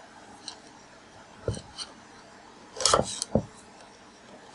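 Flathead screwdriver scraping and clicking against a valve spring and its retainer inside the valve chamber of an L-head mower engine, as the retainer is worked over to free the spring. A few short clicks and scrapes, the loudest cluster about three seconds in.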